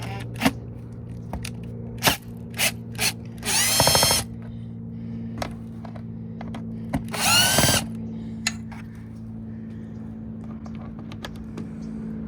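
Cordless drill fitted with a T25 Torx bit backing out the Torx screws of an air filter box. The motor runs in two short bursts, each whining up in pitch, about three and a half and seven seconds in, with clicks and clatter between them.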